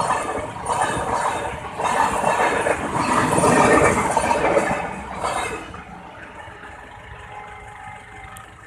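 Indian Railways train passing close by, its wheels clattering over the rail joints, loud and pulsing. About two-thirds of the way through it falls away to a much quieter steady hum.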